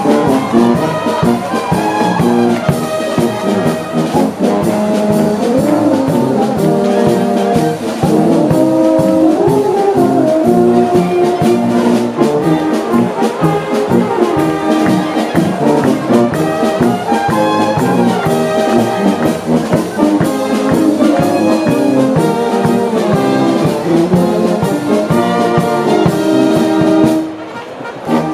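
A Bavarian brass band with trumpets, trombones, tuba and clarinets playing a piece, with a short break about a second before the end.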